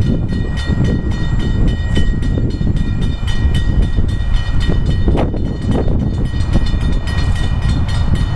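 Railroad grade-crossing warning bell ringing at a steady, rapid rate while the crossing gates lower, over heavy wind rumble on the microphone.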